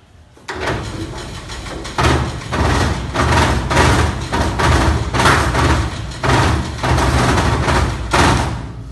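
Sinmag SM-520S tabletop dough sheeter running, its motor humming under the clatter of its belts and rollers. It starts about half a second in, grows louder about two seconds in with a pulsing rise and fall about once a second, and eases off near the end.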